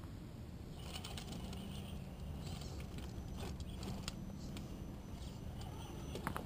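Scale RC rock crawler's Holmes Hobbies Torquemaster 27T brushed electric motor and gear drivetrain whirring as it crawls up over rocks, with a thin high gear whine. A few light clicks come from the tires and stones. The whirring stops about five seconds in.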